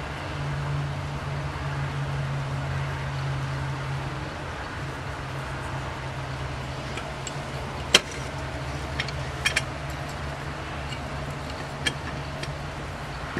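A few sharp, light metallic clicks as a small wire clip and linkage are handled and fitted on a Rochester Monojet one-barrel carburetor: the loudest about eight seconds in, two close together a second and a half later, one more near the end. A steady low hum runs underneath.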